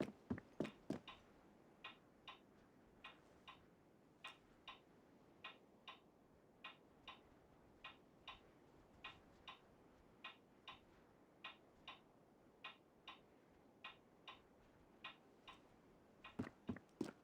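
Faint, regular ticking in pairs, about one pair every second and a bit. A short run of louder knocks comes at the start and again near the end.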